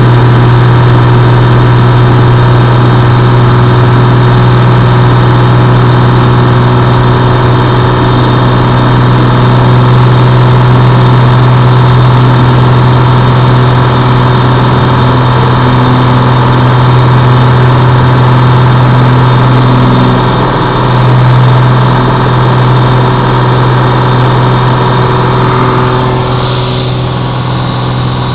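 Aircraft engine during takeoff: a loud, steady drone with a strong low hum, easing off slightly near the end.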